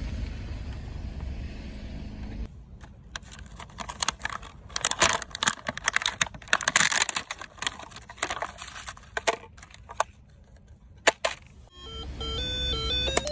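Plastic blister packaging crinkling and clicking as a handheld electronic brick game is pulled out of it by hand. A car's engine rumbles steadily at the start and again near the end, when the game gives out a short run of stepped electronic beeps.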